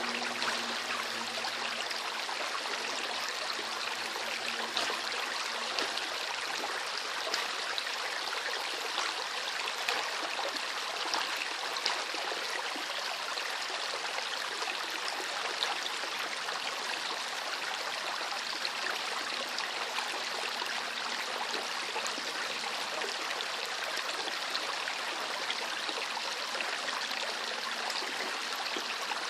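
Small river flowing steadily, the water babbling and gurgling with a constant rush dotted with many tiny splashes.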